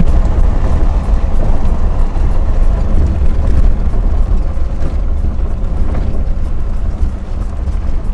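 Toyota Land Cruiser 100 series driving at highway speed: a steady, loud, low rumble of road and wind noise.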